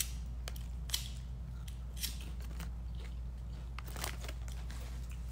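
Potato chips crunching as they are chewed, with sharp, irregular crunches and clicks over a steady low hum.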